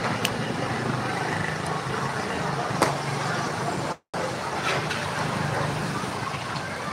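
Street traffic: motorbike engines running as bikes pass, over a steady road noise, with a sharp click a little under three seconds in. The sound cuts out completely for a moment about four seconds in.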